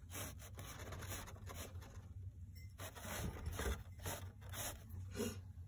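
Fired, glazed ceramic pot being handled and turned on a shelf: a series of short scrapes and rubs as it slides and is gripped, over a steady low hum.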